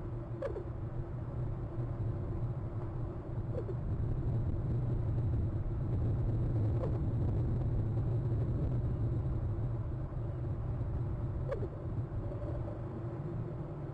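Common raven giving short, hiccup-like calls, each a brief note dropping in pitch, four times a few seconds apart. A steady low rumble of traffic runs beneath and is the loudest sound.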